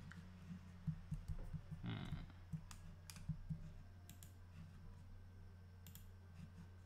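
A handful of irregular computer mouse and keyboard clicks over a faint, low, steady hum.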